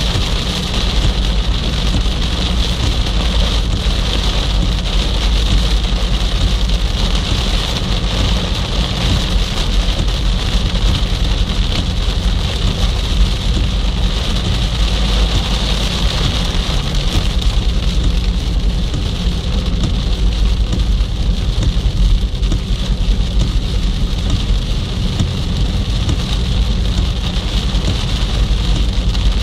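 Rain falling on a moving car, heard inside the cabin, over a steady low rumble of engine and tyres on a wet road.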